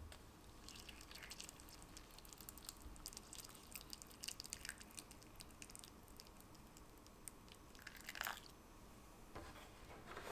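Water poured into a shallow tray lined with paper towel, for a water bath around a loaf pan: a faint, crackly trickle and patter as the water spreads and soaks the paper. About eight seconds in there is a brief louder knock.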